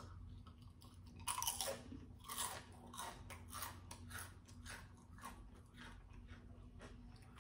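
Close crunching and chewing of a buttered Doritos tortilla chip: crisp crunches start about a second in, then grow sparser and fainter as it is chewed down.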